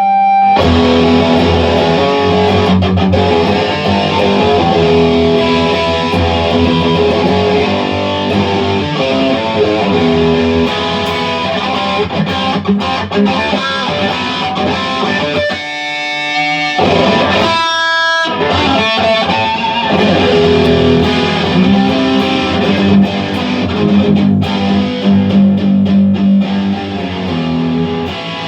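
Electric guitar played through a Blackstar 40-watt amp's distortion channel, riffing and chording continuously. About halfway through it breaks briefly, and a few notes ring out on their own before the playing resumes.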